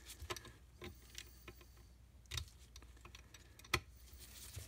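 Light, irregular clicks and ticks of a small screwdriver turning a screw down into a brass terminal clip, with two sharper clicks about two and a half and nearly four seconds in.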